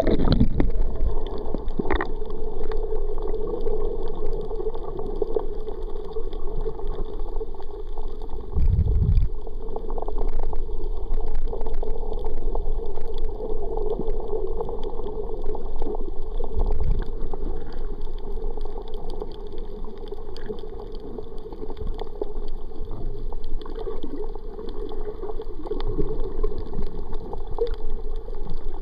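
Muffled underwater sound recorded by a submerged camera: a steady wash of water noise with scattered small clicks and a couple of brief low thumps.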